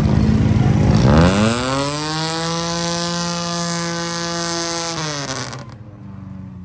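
Dense traffic and engine noise, then about a second in a loud horn note starts, rises in pitch, holds steady for about four seconds, and bends down as it cuts off, leaving quieter street noise.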